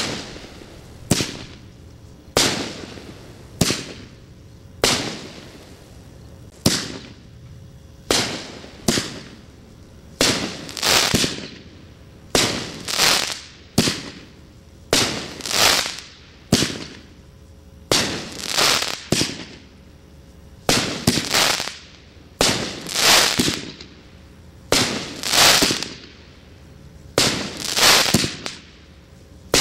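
A 500-gram aerial repeater firework cake firing shot after shot, about one a second. Each launch thump is followed by a burst of crackling stars, and the later shots carry longer crackling tails.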